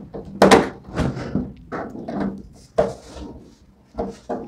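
Irregular knocks and clunks of an empty plastic Aqua Grand RO water purifier cabinet being handled while a screwdriver works tight screws loose from its top.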